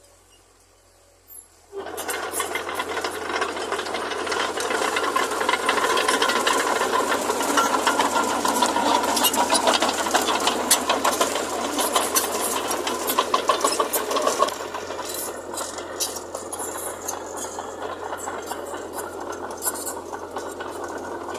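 Heavy earthmoving machinery working with a dense, continuous rattle and clatter. It starts suddenly about two seconds in, is loudest in the middle and eases off somewhat about two-thirds of the way through.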